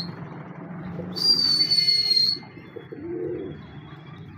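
A single high whistle about a second in, held for about a second and sliding slightly down in pitch, then a soft low pigeon coo near the end.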